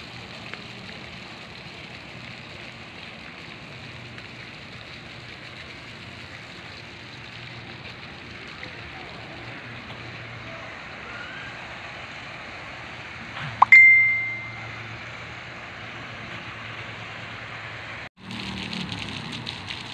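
Steady outdoor background noise, broken about two-thirds of the way through by a single sharp metallic ding that rings on one clear note and fades within about a second. Near the end the sound drops out for a moment and comes back with a rougher noise.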